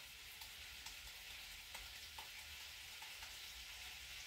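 Cabbage-and-meat cutlets frying in oil in a pan: a faint, steady sizzle with a few small scattered pops.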